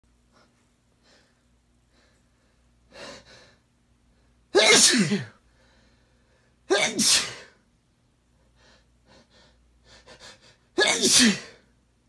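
A man sneezing three times, loudly, a couple of seconds apart, with quieter short catching breaths building up before the sneezes; the sneezes are self-induced.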